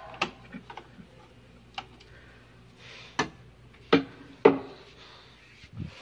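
Scattered clicks and knocks of hand tools on a circuit-breaker panel, a screwdriver working the breakers' wire terminals. The loudest are two sharp knocks about four and four and a half seconds in.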